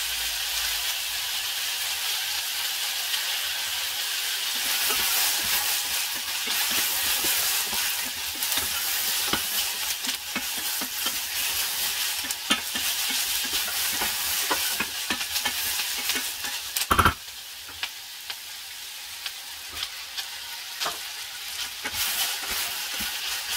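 Diced bell peppers sizzling as they fry in a stainless steel saucepan, with a steady hiss. From about four seconds in, a wooden spatula stirs and scrapes them, making many small clicks. A single sharp knock about seventeen seconds in is the loudest sound, and the stirring and sizzling go on more quietly after it.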